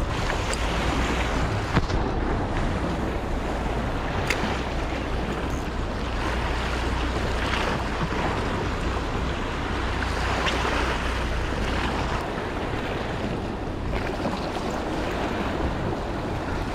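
Sea waves washing and breaking against a rocky shore in steady swells, with wind rumbling on the microphone that eases about two-thirds of the way through.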